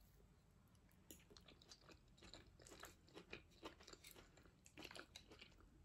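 Faint close-up chewing of a mouthful of tuna pasta salad: soft, irregular wet mouth clicks, several a second.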